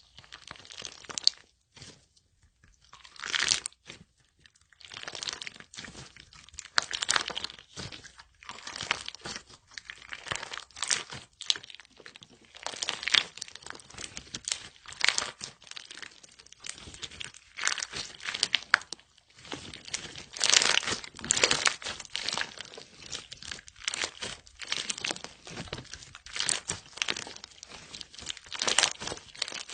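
Slime being worked by hand: squeezed, pressed and stretched, giving dense runs of crackling clicks in irregular clusters, about one a second.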